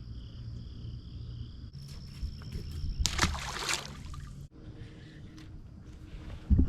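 Outdoor ambience with a steady insect drone over a low hum. About three seconds in there is a brief, loud rushing noise, and the drone cuts off suddenly a second later.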